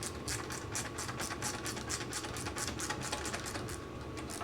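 Rapid, even mechanical clicking, about seven or eight clicks a second, from hand work on the lawn mower.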